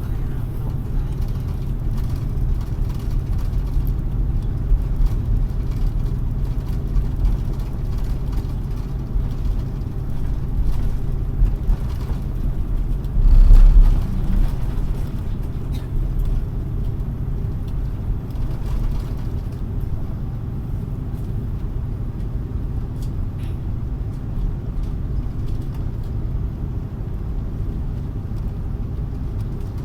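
Cabin noise of an Airbus A330-300 taxiing after landing: a steady low rumble of engines at idle and wheels rolling, with one louder low thump a little under halfway through.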